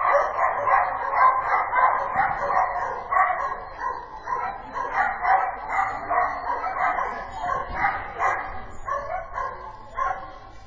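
A dog barking rapidly and over and over, several barks a second, easing off a little near the end.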